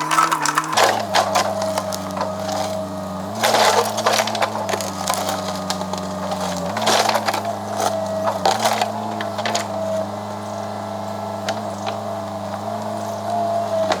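Wood cracking and splintering in a series of sharp snaps, over a steady low drone.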